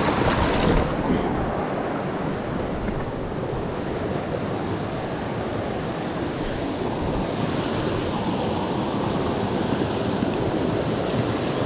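Steady rushing of a small creek's flowing water, a little louder for the first second.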